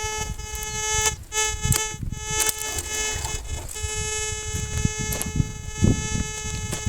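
Metal detector sounding a steady, buzzy single-pitch tone that drops out briefly a couple of times in the first few seconds, with wind gusting on the microphone.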